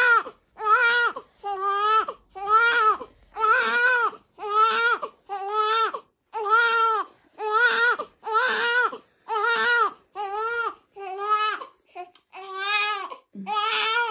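Newborn baby crying steadily during a clothing change: a run of short, arching wails, a little more than one a second, with quick breaths between them.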